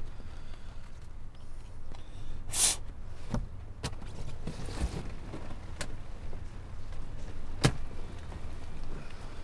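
Handling noises inside a car cabin over a low steady rumble. There is a short rustling burst about two and a half seconds in, then three sharp clicks spread over the next five seconds, the last one the loudest.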